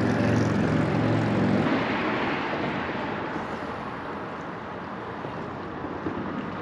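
A passing engine: a steady pitched hum that stops about two seconds in, followed by a wash of noise that slowly fades away.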